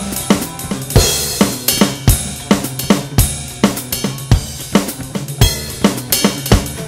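Electronic drum kit played in a steady groove of kick, snare and hi-hat, with a cymbal crash about a second in, over a backing song with a bass line.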